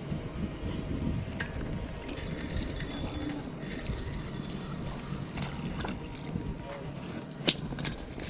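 Outdoor background of wind rumbling on the microphone with faint, indistinct voices, and one sharp click about seven and a half seconds in.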